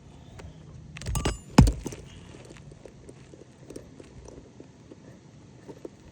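Roofing work on a shingle roof: a brief metallic clatter about a second in, then one sharp knock, followed by a few light taps and ticks of tools and shingles being handled.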